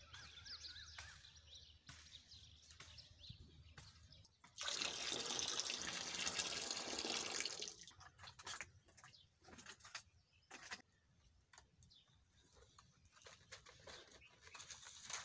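Palmyra sap boiling in a large iron pan over a fire of dry palm fronds, with irregular pops and crackles. About four and a half seconds in, a loud rushing noise lasts roughly three seconds. Faint bird chirps come at the start.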